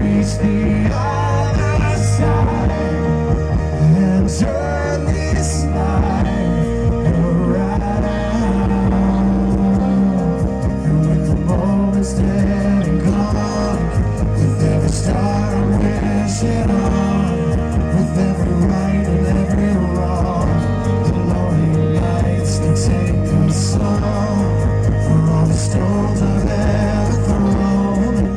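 Live rock band playing loud amplified music, with drum and cymbal hits throughout and singing at times.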